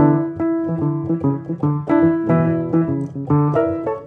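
Background piano music: a steady run of struck notes, several a second, over held lower notes.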